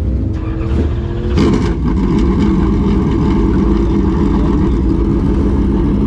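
Dirt late model race car's V8 engine running in the pits, idling smoothly at first, then turning louder and rougher about a second and a half in and holding there.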